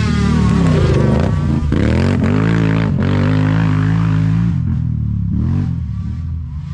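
ATV engine revving hard under acceleration, its pitch climbing several times through the gears, then easing off about four and a half seconds in.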